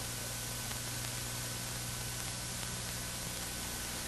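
Steady hiss with a low hum: the background noise of an old film soundtrack, with no other sound.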